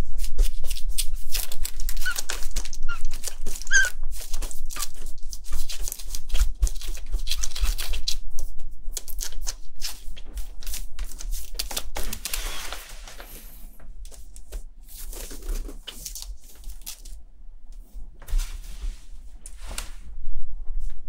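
Dense, irregular crinkling and crackling of a plastic-backed disposable pet pad as a hand strokes a newborn kitten lying on it and the kitten shifts about. A few short high squeaks come about two to four seconds in.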